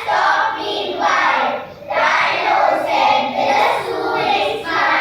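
A chorus of children's voices chanting verse together in unison, in phrases with short breaks between them.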